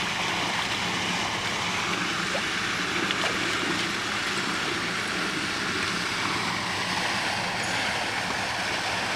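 Floating pond aerator fountain splashing steadily, an even rush of water.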